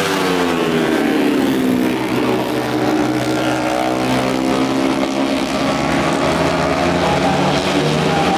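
Engine of a racing composite long-tail boat (vỏ lãi) running hard as it passes, its pitch dropping over the first two or three seconds, then holding and creeping back up near the end.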